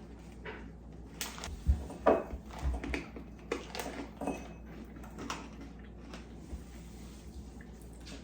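Scattered light clicks and crackles, irregular and a few per second: crunchy cassava snack balls being handled and chewed.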